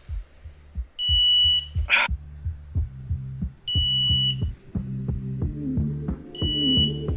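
Digital torque angle gauge beeping three times, each a short steady high beep about two and a half seconds apart, signalling that the head bolt has reached the 90-degree target angle. A low, regular beat runs underneath.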